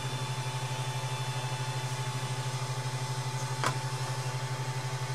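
Steady hum of a powered-on Ender 3 Pro 3D printer's cooling fans, with one short click about three and a half seconds in as a small plastic printed part is set down on the print bed.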